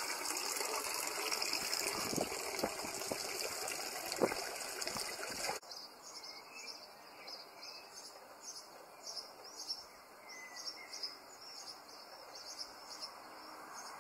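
Small songbirds chirping in many short, quick calls, starting after a sudden drop in background noise about halfway through. Before that, a steady rushing noise with a few knocks.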